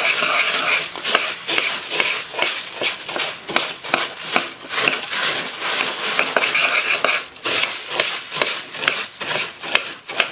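Dry cornflakes rustling and crackling as a spoon stirs them into a stainless steel pot to coat them in a peanut butter and corn syrup mixture, with frequent irregular clicks and scrapes of the spoon against the pot.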